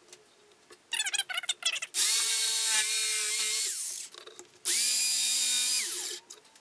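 Corded jigsaw motor running in two short bursts, each a steady whine that winds down in pitch when released, after a brief rattle about a second in.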